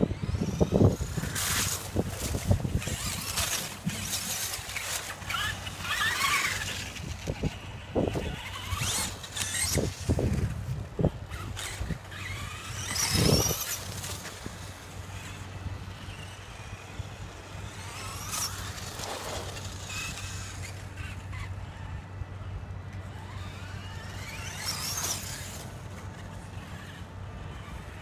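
Radio-controlled truck's motor whining, rising and falling in pitch again and again as the truck speeds up and slows, with bursts of noise from its tyres on the wet road.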